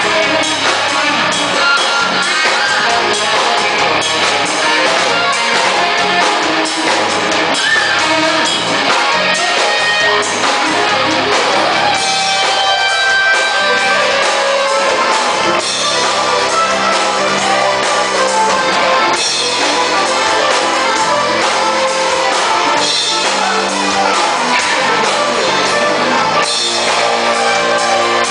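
A live rock band playing loud and without a break: electric guitar, bass guitar and drum kit together.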